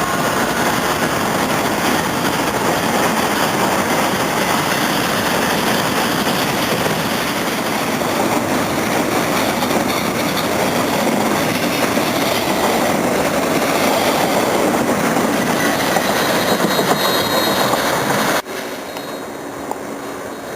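A train rolling past, its cars and wheels on the rails making a steady, loud noise that breaks off abruptly about 18 seconds in, leaving a quieter background.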